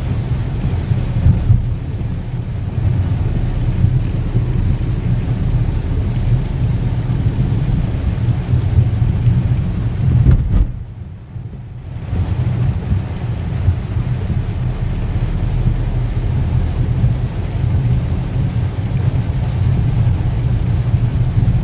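Inside the cabin of a 2011 Maruti Suzuki Wagon R on the move on a wet road in rain: a steady low rumble of road, tyre and engine noise from its 998 cc three-cylinder petrol engine, with rain hiss on top. About halfway through the sound drops away for about a second, then returns.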